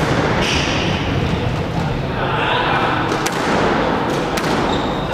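Squash ball hit back and forth in a rally: a few sharp cracks of racket on ball and ball on wall, spaced a second or more apart, two of them in quick succession, over steady background noise.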